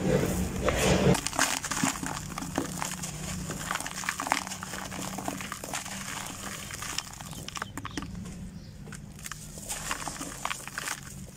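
Dry, sandy dirt lumps crushed between bare hands, with gritty crackling and the trickle of grit and dust falling into a bowl. For the first second or so, a loose gravelly mix pours into a bucket with a heavier rumble.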